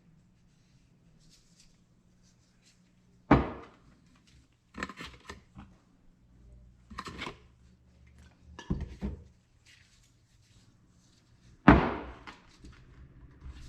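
Knocks and clatter of motorcycle fork parts being handled on a workbench during fork seal reassembly: two sharp knocks, about three seconds in and near the end, with lighter clunks between.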